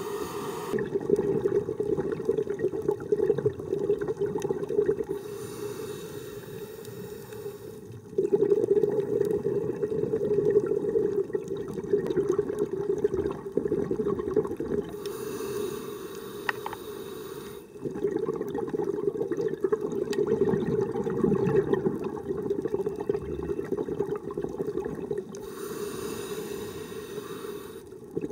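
Scuba diver breathing slowly through a regulator underwater: about three breaths, each a hissing draw followed by a rush of exhaled bubbles.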